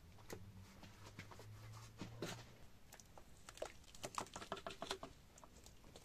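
Faint scattered clicks and soft wet plops of a thick clay-and-lime plaster mix poured from a plastic bucket into a mixing tub, with a low hum through the first couple of seconds.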